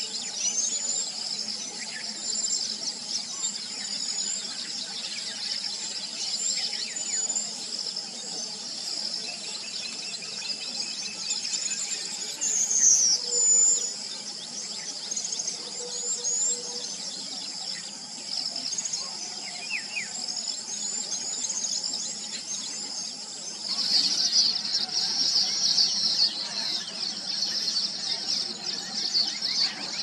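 A steady, high-pitched insect chorus with many short, quick bird chirps over it. The insect sound grows louder about three-quarters of the way through.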